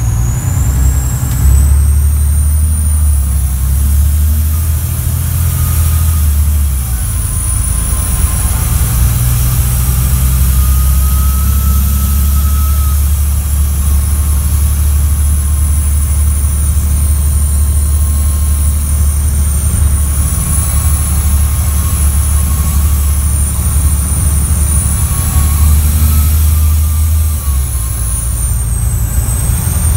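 Scania DC9 9-litre inline-six bus engine pulling under way with a loud, high-pitched whistle from a leaking turbocharger. The whistle rises at the start, holds steady, and dips briefly near the end, while the engine's low note changes step a couple of times. Heard from inside the bus.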